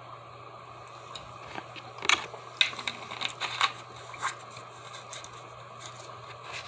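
Drinking from a large plastic soda bottle, followed by an irregular run of sharp clicks and crackles as the plastic bottle is handled and lowered, over a steady low hum.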